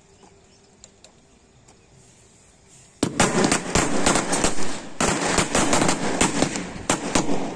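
Firecrackers going off on the ground: a sudden start about three seconds in, then rapid crackling and sharp bangs in quick succession, with a short break about five seconds in.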